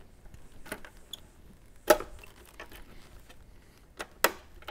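Plastic wiring-harness connectors being unlatched and pulled off the back of a Harley-Davidson Road Glide's factory radio: a few sharp plastic clicks, the loudest about two seconds in and two close together near the end.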